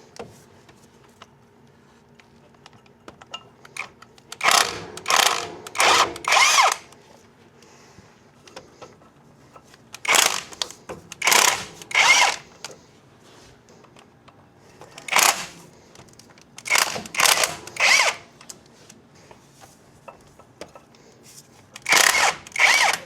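A handheld power tool, a drill or impact driver, run in about a dozen short bursts in several quick groups, as bolts are run in or out.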